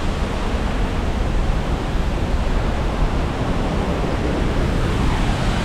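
Waterfall's steady rushing roar of falling water, an even noise without breaks.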